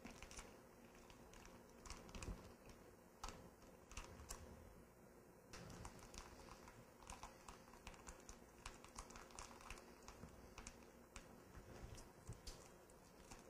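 Faint, irregular small clicks and crinkles as hands handle the film dressing and the dome connector of a negative pressure wound therapy dressing.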